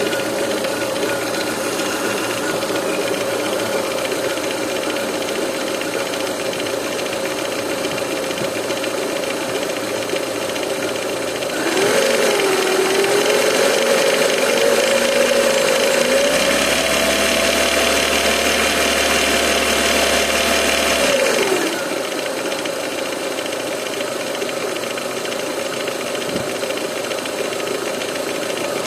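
Renault K4M 1.6-litre 16-valve four-cylinder petrol engine running with a knock, the fault the owner is recording. It idles, is revved up about twelve seconds in, held at higher revs for around ten seconds, then drops back to idle.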